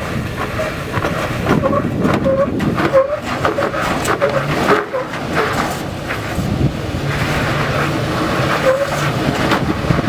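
Toyota Tacoma pickup's engine running under load as the truck struggles, stuck with a front wheel down in a rock crack. Its tyres scrub and chirp against the sandstone over and over, with scrapes and knocks of rubber and metal on rock.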